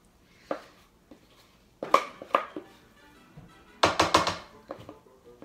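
A spatula and mixing bowl clacking and scraping as thick brownie batter is scraped out into a metal baking pan: a handful of sharp knocks, with a quick cluster about four seconds in. Faint music with steady notes comes in underneath.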